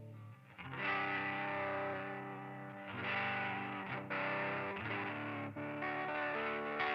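Electric guitar chords played through a Chase Bliss Generation Loss MKII tape-emulation pedal, sustained and lo-fi, with a few brief dropouts where the sound cuts out for an instant.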